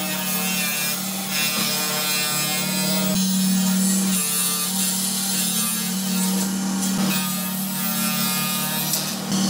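Table saw running with its blade cutting through sheets of 18 mm birch plywood: a steady motor hum under the noise of the cut.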